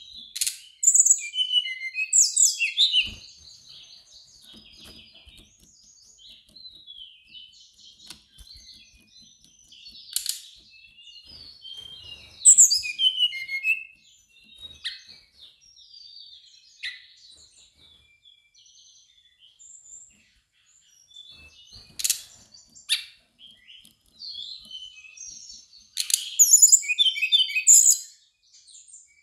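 Brown-chested jungle flycatcher singing: varied, high twittering phrases in bursts separated by short pauses, loudest about twelve seconds in and again near the end.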